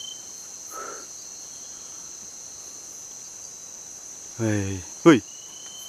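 Steady chorus of night insects, a constant high-pitched drone with a thinner steady tone that drops out just after the start and comes back near the end.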